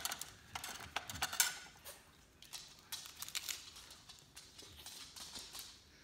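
Crisp tostada shell cracking and crunching in short, irregular snaps as it is handled and bitten into; the loudest snaps come in the first second and a half.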